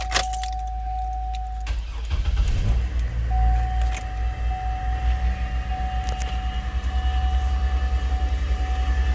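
Keys click in the ignition of a Chevrolet Trailblazer and a warning chime sounds. About two seconds in, the engine cranks and catches, then settles into a cold-start idle while the chime keeps sounding in repeated tones.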